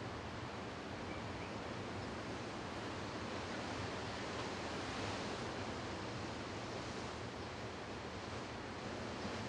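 Steady rushing outdoor noise with a low steady hum underneath, unchanging throughout.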